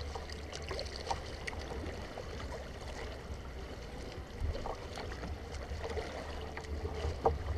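Water lapping and splashing against a kayak's plastic hull as it is paddled through light chop, with small sharp splashes now and then. Under it runs a low steady rumble of wind on the microphone.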